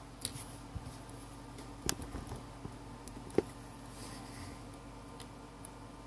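A few light clicks and taps from small phone parts and tools being handled on the workbench, the sharpest about two seconds in and again past the middle, over a faint steady hum.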